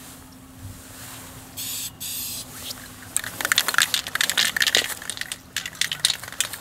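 Two short hisses from an aerosol spray-paint can, then a stretch of crackling and rustling from about three seconds in as the painter stands up and moves about.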